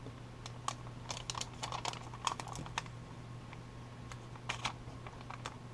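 Irregular light clicks and taps of small card-stock pieces being handled and pressed onto Zots glue dots on a desk, in two short clusters.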